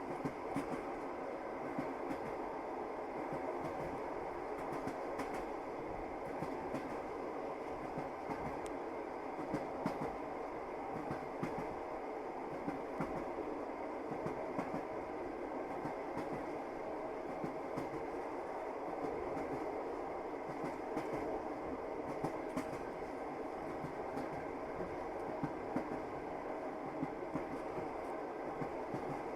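Passenger train running along the track, heard from inside the carriage: a steady rumble with the clatter of wheels over the rails, short sharp knocks coming irregularly throughout.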